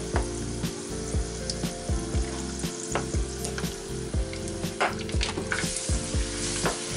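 Hot oil sizzling steadily in a pot as battered chicken pieces deep-fry, getting louder near the end as another batter-coated drumstick is lowered in. Background music with a steady beat of about two strokes a second plays under it.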